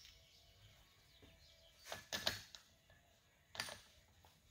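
A few light metallic clinks of limited-slip differential parts, the clutch plates and side gears, being handled as they are oiled: two close together about two seconds in, and one more a second or so later.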